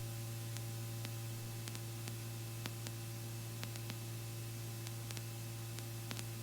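Steady low electrical hum with a hiss and faint scattered clicks on the helicopter's intercom audio feed, an open line with nobody talking.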